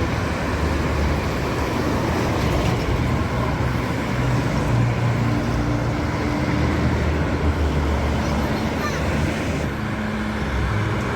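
Vehicles passing on a toll road: steady engine hum and tyre noise that swells several times as heavier vehicles go by.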